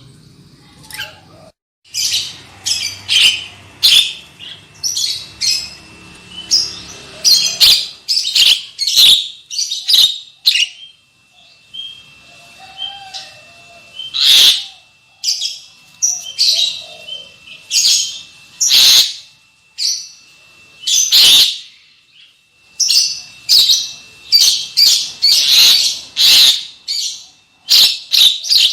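Javan myna giving loud, harsh, chattering calls in quick clusters separated by short pauses.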